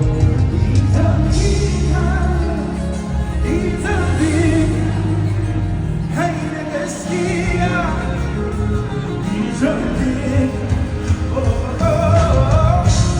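Live gospel worship music: a singer's voice over a band with a heavy bass, heard in a large hall.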